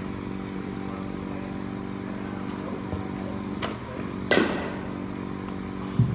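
A bat strikes a ball with a sharp ringing ping about four seconds in, just after a short click. A steady motor hum runs underneath, and a dull thump comes near the end.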